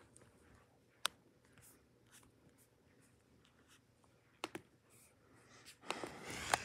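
Faint room tone broken by two sharp clicks, one about a second in and one about four and a half seconds in, then a rustling noise that grows louder near the end.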